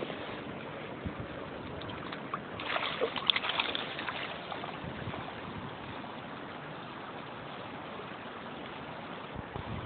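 Shallow river water running steadily, with a burst of splashing from about two and a half to four seconds in as a caught nase is let go into the water.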